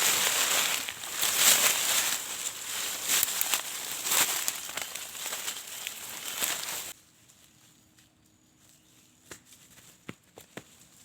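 Dense crackling, crinkling rustle of dry vegetation being disturbed while searching for bait worms. It cuts off abruptly about seven seconds in, leaving only a few faint clicks.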